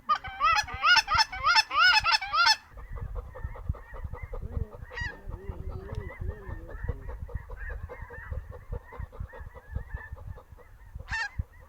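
Snow geese calling: a fast run of loud, close honks for the first two and a half seconds, then the steady, more distant chorus of a large flock for the rest.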